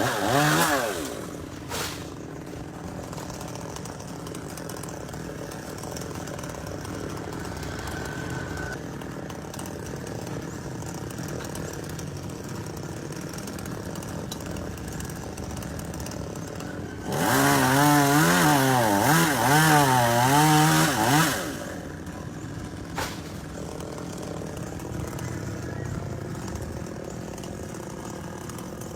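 Two-stroke chainsaw idling steadily, revved hard twice: briefly at the start and again for about four seconds midway, the pitch wavering under the throttle before dropping back to idle.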